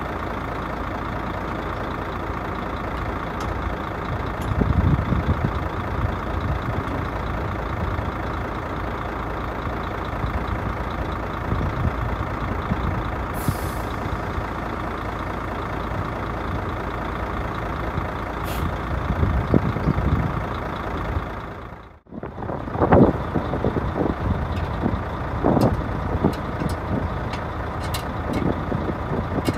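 Mercedes-Benz Actros tractor unit's diesel engine idling steadily while the trailer's air and electrical lines are coupled, with a short hiss of air about halfway through. After a sudden cut, a few louder knocks of handling on the trailer.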